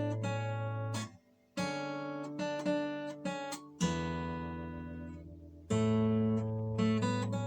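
Yamaha steel-string acoustic guitar played freely: chords struck and picked, with one chord left ringing for about two seconds in the middle.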